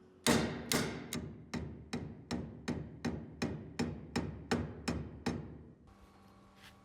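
Hammer blows on metal: about fourteen even strikes, roughly two and a half a second, each ringing briefly, stopping about five seconds in.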